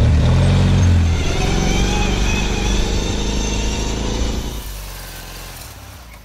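Small engines of off-road lawn tractors running under load, with the revs rising and falling. The sound fades away over the last second or two.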